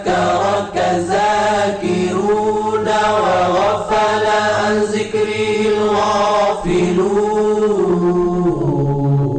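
Arabic nasheed chant of the salawat, a blessing on the Prophet Muhammad, sung by voices in a slow, gliding melody over a steady low drone. Near the end the melody settles onto a lower held note.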